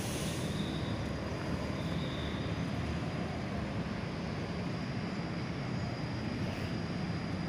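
Steady rumble of road traffic and engines, with a motorcycle passing at the start.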